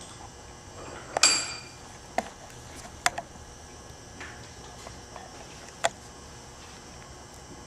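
Small metal tools and parts clinking and tapping on a work surface: a handful of sharp clicks, the loudest about a second in with a brief metallic ring, the others spread out, near two, three and six seconds.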